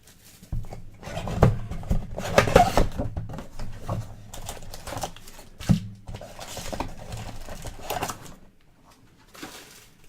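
Cards and card boxes being handled on a table: irregular clicks, taps and rustles as cards are sorted and set down.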